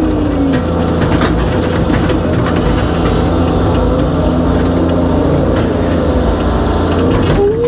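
Excavator's diesel engine and hydraulics working under load, heard from inside the cab as the bucket digs and dumps dirt. A whine falls in pitch in the first half-second and rises again near the end, over scattered knocks.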